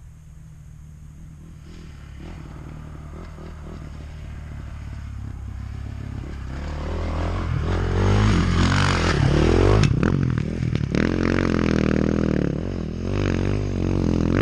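Dirt bike engine growing steadily louder as the bike rides down the trail toward and past close by, then revving up and down as it climbs away; a sharp knock about ten seconds in.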